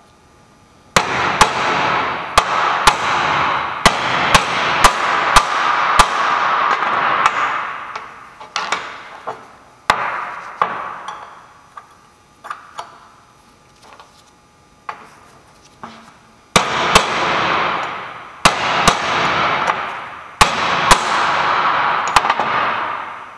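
Hammer striking a steel race driver to drive bearing races into a Jaguar IRS output shaft's brake caliper bracket. There are sharp metal strikes, about two a second, each leaving the metal ringing. They come in two runs with a few scattered blows between them.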